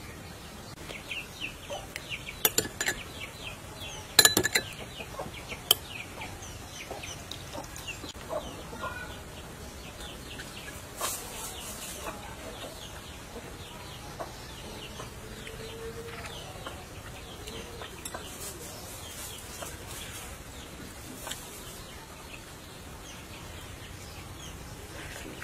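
Chickens clucking now and then in the background. A few sharp clicks in the first six seconds, the loudest about four seconds in.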